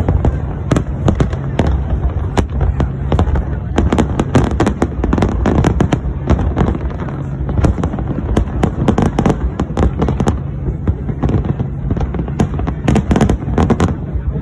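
Aerial fireworks shells bursting in a dense barrage, rapid irregular bangs and crackles over a continuous low rumble.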